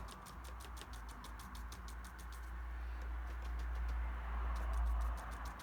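Soft scratchy brushing of a paintbrush working watercolour paint on paper, growing a little louder about four to five seconds in, over a low steady hum.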